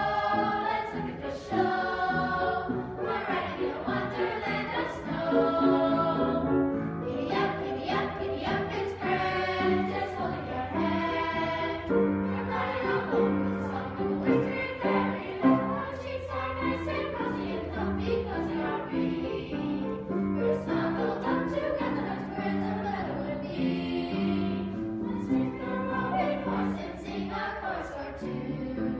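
Children's choir singing a holiday song, with music underneath.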